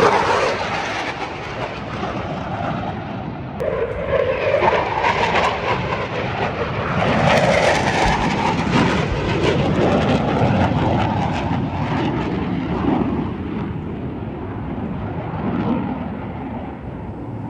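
Military jet aircraft flying past, a loud engine roar that swells, eases, swells again and fades toward the end.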